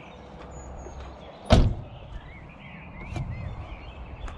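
A van door being shut with a single heavy thud about one and a half seconds in, over a low steady background rumble.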